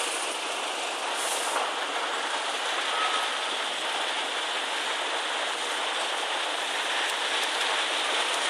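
Steady rushing of water: the River Avon pouring over the weir just below Pulteney Bridge.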